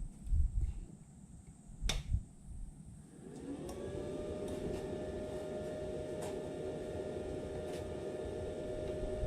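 A few knocks and a click, then an electric motor spins up about three seconds in and runs at a steady, even whir.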